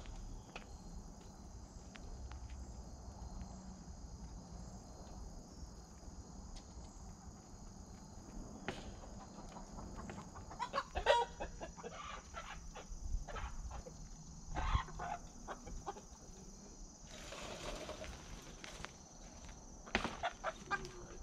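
Ameraucana hens clucking and squawking in short bursts as they are caught and handled, with the calls coming in clusters from about halfway through.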